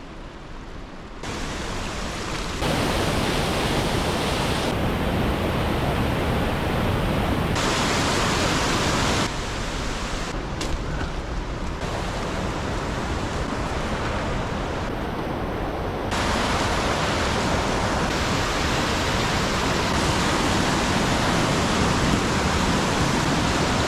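Steady rushing noise, like wind or running water, that jumps in level and tone several times.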